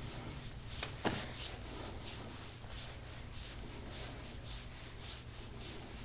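Deep-tissue massage strokes rubbing and swishing over the body in an even rhythm, about three strokes a second, with one sharp click about a second in.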